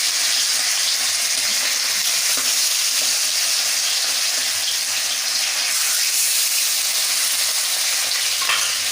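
Pieces of rohu fish, coated in a light gram-flour marinade, frying in hot mustard oil in a kadai: a steady, dense sizzle.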